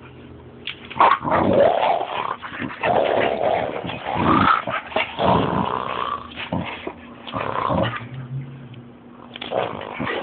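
Boxer puppy growling during rough play with a hand, in irregular bursts close to the microphone, with a short lull about eight seconds in.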